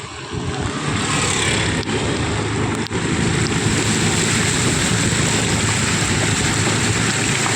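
Steady rushing noise of a vehicle travelling along a flooded street in heavy rain, with a low rumble underneath.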